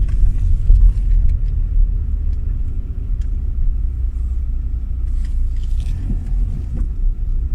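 Low, steady running rumble of a 2008 Audi A6 (C6) driven slowly, with a few faint sharp knocks. The knocks are the intermittent front nearside suspension clunk that the owner has not yet traced.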